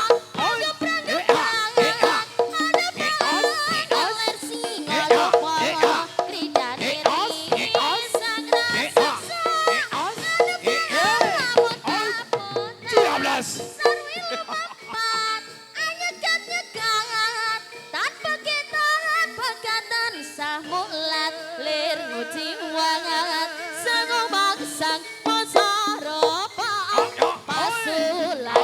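Javanese jaranan dance music: drums and struck percussion under pitched melody lines, dense with strikes in the first half, with a wavering, vibrato melody standing out in the second half.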